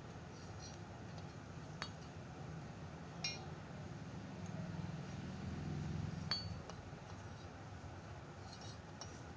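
Small metal rosewater sprinkler (gulabdani) clinking lightly as it is handled: three short clinks, the second and third ringing briefly, over a soft handling rumble in the middle.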